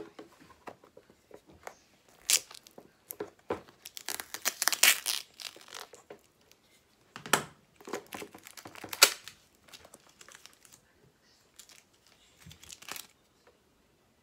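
Stiff clear plastic packaging being handled and opened: irregular crinkling and clicking, with louder crackling spells about two seconds in, around four to five seconds, and again around seven to nine seconds.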